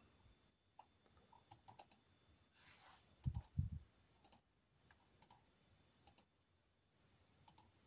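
Computer mouse buttons clicking, single clicks and quick double clicks every second or so. Two soft low thumps a little past the middle.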